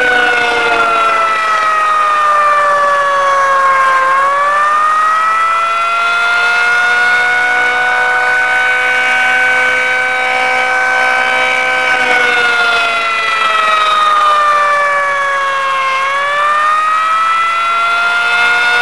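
Federal Signal 2T22A dual-tone outdoor warning siren sounding a steady chord, heard from about a quarter mile away; its lower intake is blocked, which gives it more rotor speed and a distinctive tone. The pitch sags twice, about four seconds in and again near the end, and climbs back each time.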